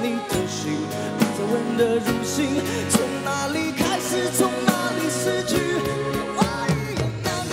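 Male vocalist singing a pop ballad live into a microphone, backed by a live band of drum kit, guitars and keyboards.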